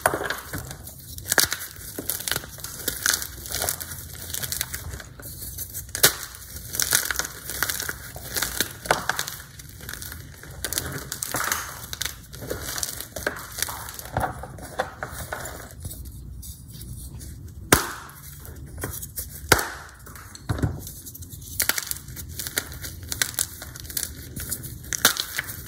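Hard blocks of Z-Athletic gym chalk crushed and crumbled between bare hands: a dense run of dry crunching and crackling, with a number of sharp snaps as chunks break.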